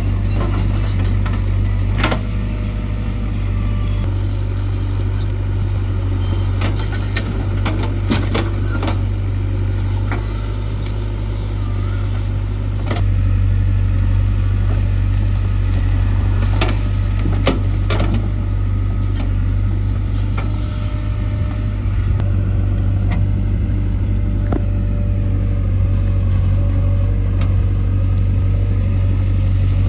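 JCB 3DX backhoe loader's diesel engine running steadily under work, its note shifting a couple of times, with scattered knocks and clanks from the working machine.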